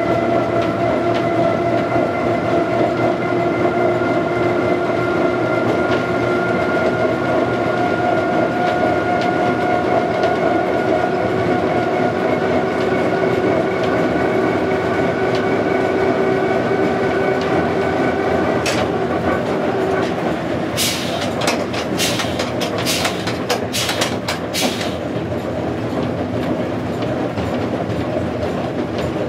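Cab ride aboard a Class 05 diesel shunter under way: steady running noise with a whining note that climbs slowly and drops away about two-thirds of the way through, followed by a quick run of sharp clicks.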